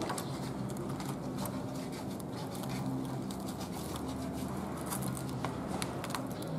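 Background ambience: a steady low hum with short pitched segments coming and going, and scattered light clicks and ticks throughout.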